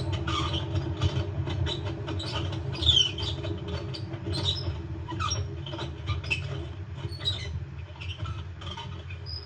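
Failed drum bearings in an LG washing machine grinding and rumbling as the drum turns with the motor removed, with steady scraping and clicking throughout. The bearings are leaking and worn out, which the repairer suspects comes from a failed inner tub seal.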